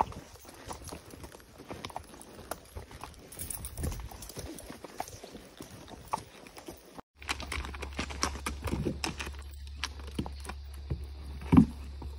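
Hooves of walking horses clopping irregularly on a dirt trail. The sound drops out briefly about seven seconds in, then the hoof steps go on over a steady low hum, with one louder thud near the end.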